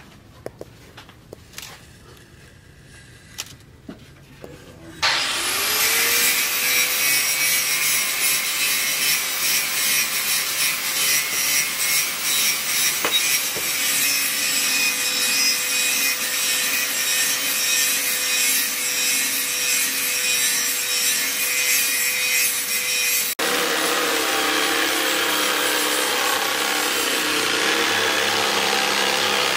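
Electric jigsaw starting up about five seconds in, its motor whine rising and then holding steady, as it saws through a wooden board. About 23 s in the sound changes abruptly to another stretch of cutting. Before the saw starts there are only a few faint taps.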